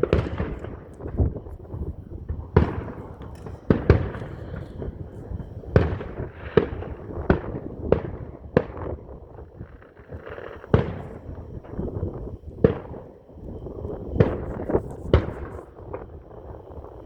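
Fireworks going off in rapid, irregular succession during a grand finale: well over a dozen bangs, each trailing off in a rumbling echo.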